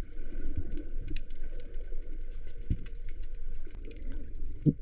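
Underwater ambience: a continuous crackle of many small, sharp clicks over a low rumble of moving water.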